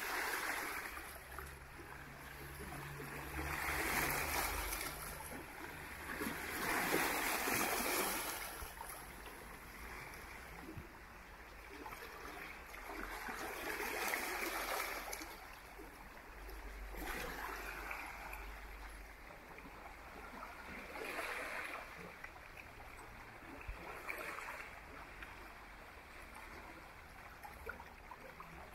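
Adriatic Sea waves washing onto the beach, swelling and fading every three to four seconds.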